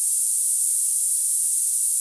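Steady 10 kHz narrow-band noise, a continuous high-pitched hiss with no low or middle tones, made for masking high-pitched tinnitus.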